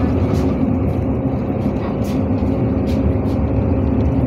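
Steady engine drone and road noise heard inside a NefAZ-5299 city bus driving in traffic, with a constant low hum and a few faint clicks.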